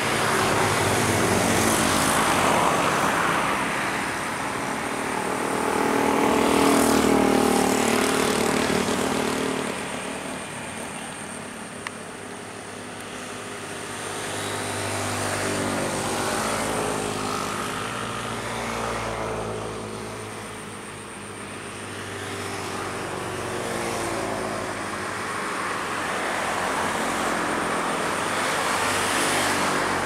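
Motor engines droning, swelling and fading several times as they pass; a single short click near the middle.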